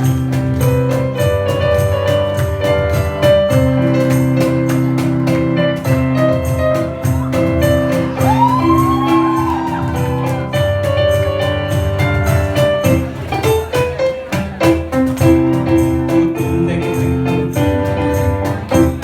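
Bollywood retro song medley playing loudly with a steady beat and sustained chords. A few swooping glides rise and fall over it about eight seconds in.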